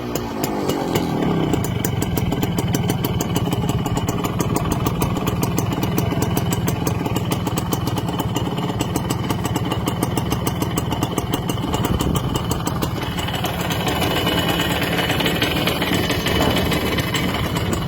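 Honda H100S motorcycle's single-cylinder two-stroke engine idling steadily, settling to idle about a second in after being revved.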